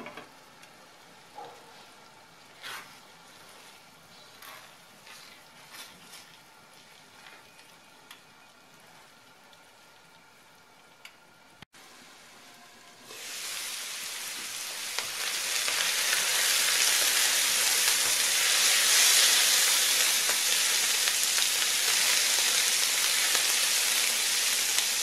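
Pan of chanterelles and sliced leek cooking. First it simmers faintly under a glass lid, with a few light ticks. About halfway through, the lid is off and the chanterelles are frying in oil and butter: a loud, steady sizzle that swells over a couple of seconds.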